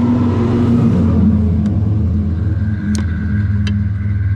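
A machine's engine running loud and steady, with a rushing noise that fades over the first second and a few light clicks later on.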